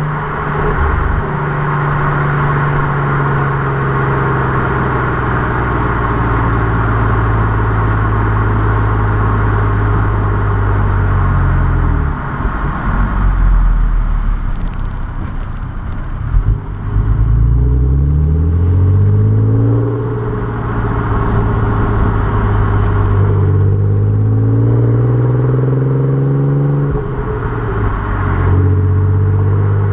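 Audi TT 3.2-litre VR6 engine and exhaust on the move, with tyre and wind noise. It cruises at steady revs, eases off about twelve seconds in, then pulls up through the revs with a rising note twice in the second half, dropping back in between.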